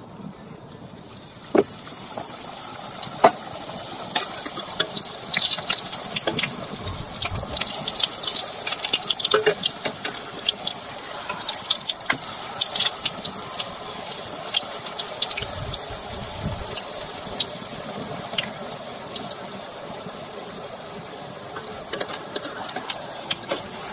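Fry bread dough sizzling and crackling in hot oil in a pot, starting about a second and a half in as the dough goes in, with frequent sharp pops throughout.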